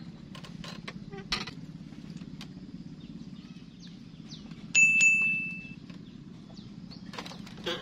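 A fishing rod's bite indicator gives one sudden bright ding about five seconds in, ringing for about a second: a fish has taken the bait. Under it runs a steady low motor hum with scattered small clicks.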